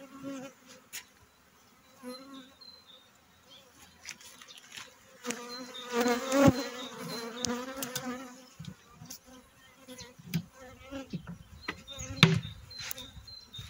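Honeybees buzzing around an open hive, with single bees flying close past so the buzz wavers up and down in pitch, densest about six to eight seconds in. A few sharp knocks cut in, the loudest about six and a half and twelve seconds in.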